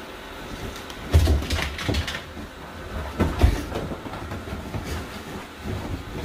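A large dog thudding and scrabbling as it jumps about on and off a fabric sofa and floor cushion, with a run of heavy thumps between about one and three and a half seconds in. A steady whir runs underneath, from a robot vacuum running on the floor.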